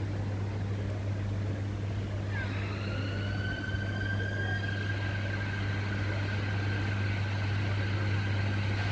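Steady low mechanical hum under a noisy background, joined about two seconds in by a high whine that rises slightly and then holds steady.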